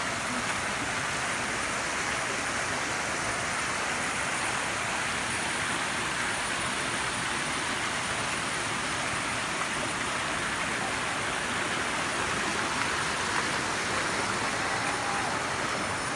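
Steady rush of water from a small waterfall and stream, with a thin, high, steady insect trill running above it.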